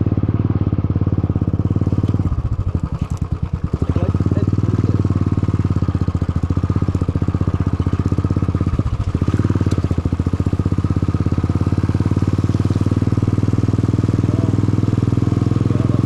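Motorcycle engine and exhaust running loud and steady while riding. The engine note drops briefly about two and a half seconds in and again around nine seconds, as the throttle eases off.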